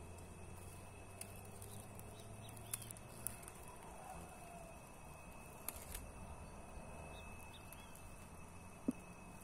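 Faint outdoor ambience with a few short, soft bird chirps and a handful of sharp clicks, the loudest near the end.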